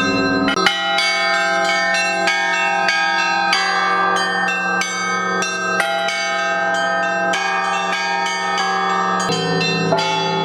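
Bronze church bells of a Russian Orthodox belfry rung by hand in the Easter zvon. The higher bells are struck in a quick, repeated rhythm over the lasting hum of a deeper bell, so the tones overlap and ring on.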